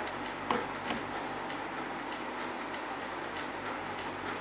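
Steady low room noise with a faint, regular ticking, about two ticks a second, and a soft knock about half a second in.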